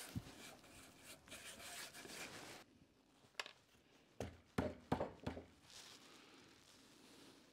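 Hands brushing drill shavings across a maple board, a soft rustle, then after about two and a half seconds a handful of light taps and clicks as a steel rule is set against the drill bit.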